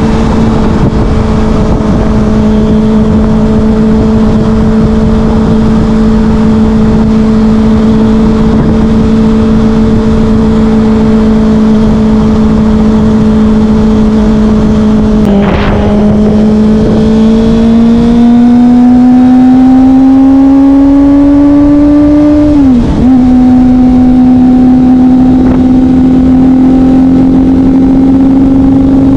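Kawasaki Ninja ZX-25R's 250 cc inline-four running through a Yoshimura R11 exhaust, first holding a steady note at cruise. After a brief dip about halfway, the note climbs steadily as the bike accelerates. It then drops sharply with an upshift about three-quarters through and settles at a steady, slightly higher note.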